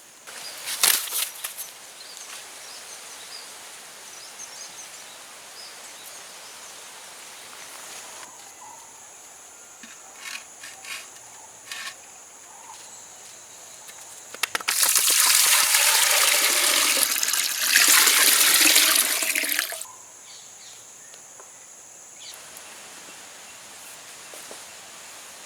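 Water poured or splashing for about five seconds past the middle, over a steady outdoor background, with a few sharp clicks near the start.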